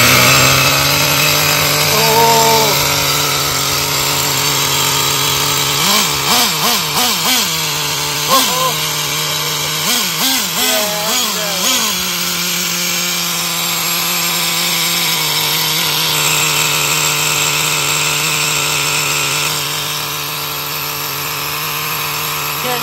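Small nitro (glow-fuel) engine of a Traxxas RC monster truck running: it idles steadily, is revved up and down in a quick series of throttle blips from about a quarter of the way in to about halfway, then settles back to a steady idle.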